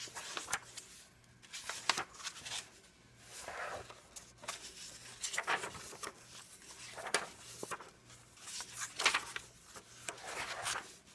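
Pages of a glue-bound paperback coloring book, medium-weight paper, being turned by hand: repeated dry paper rustles and swishes about every second or two, with light sharp flaps as the pages fall flat.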